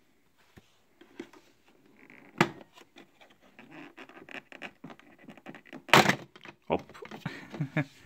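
Plastic clicks, scrapes and knocks as the grille cover over the filter of an Electrolux SuperCyclone vacuum cleaner is unlatched and lifted off. There is a sharp knock about two and a half seconds in, and the loudest click comes about six seconds in.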